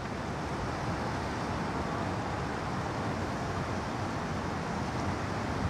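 Steady outdoor background noise: an even rumbling hiss with no distinct events.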